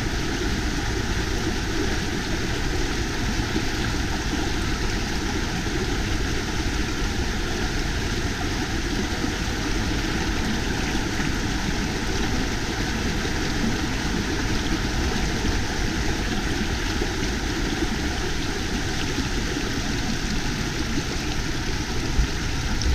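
Mountain stream rushing steadily over rocks in a tunnel under snow, with a brief bump near the end.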